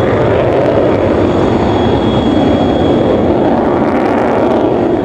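Avro Vulcan bomber's four Rolls-Royce Olympus turbojets at display power, a loud, steady jet roar: the Vulcan's engine howl.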